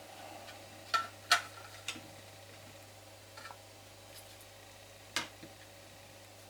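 A few sharp plastic clicks and taps as the circuit board of a VW T5 multifunction control unit is fitted back into its housing: a cluster of three about a second in, and one more about five seconds in, over a steady low hum.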